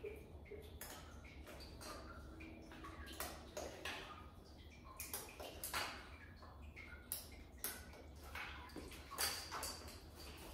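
Scattered light clicks and clinks of hand tools and metal parts being handled on an engine during assembly, irregularly spaced, over a steady low hum.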